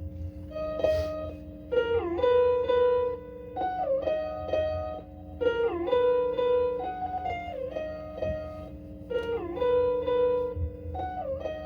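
Guitar playing a repeating intro riff, a short phrase about every two seconds with notes bent down and back up in pitch, over a steady low droning tone.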